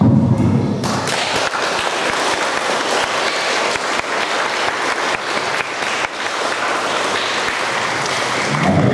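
Crowd applauding, breaking out about a second in and keeping up steadily until near the end.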